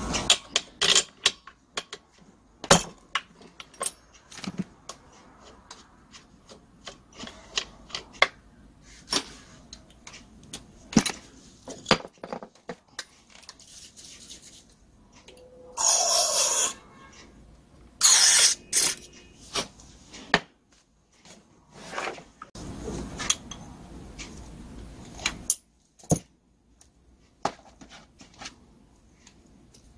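Irregular clicks, knocks and clinks of metal hand tools and small parts as a butane brush cutter's carburetor is taken apart. A rush of noise about a second long comes roughly halfway through, a shorter one follows, and a softer one lasting a few seconds comes later.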